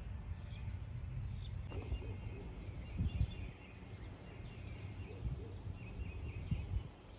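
Outdoor ambience: small birds chirping faintly and intermittently over a steady low rumble.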